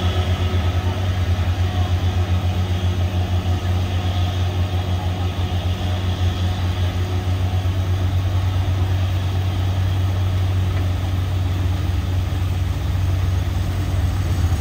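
Large diesel truck engine idling: a steady low rumble with a fast, even pulse.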